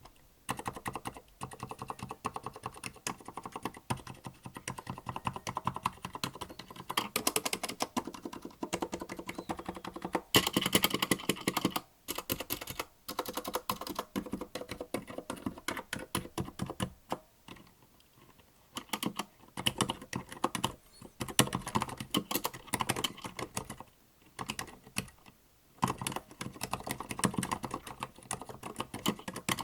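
Typing on a Tada68 mechanical keyboard with Gateron Silent Black switches: fast runs of quiet, damped keystrokes that stop briefly a few times between bursts.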